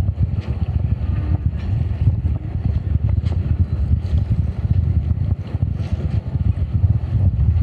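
Wind buffeting the microphone on a sailboat's open foredeck at anchor, a loud gusting rumble, with a few faint irregular knocks.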